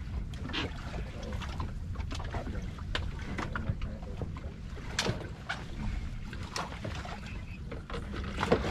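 Ambience aboard a small fishing boat on open ocean: a steady low rumble of wind on the microphone, with scattered light knocks at irregular moments.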